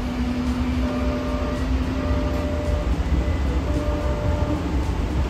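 Siemens S70 light rail car running, heard from inside the passenger cabin: a steady low rumble with a motor hum that steps up in pitch about halfway through.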